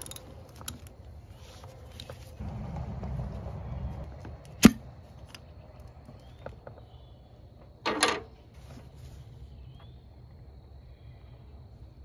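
Hand tools and metal parts being handled on a new automotive AC compressor as its shipping cover plate is unbolted and removed: small ticks, a sharp metallic clink about five seconds in, and a short clatter about eight seconds in.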